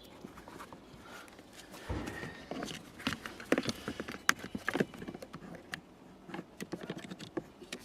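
Irregular clicks and knocks of hard plastic parts being handled and fitted, with a dull thump about two seconds in and a quick run of sharper clicks a second later.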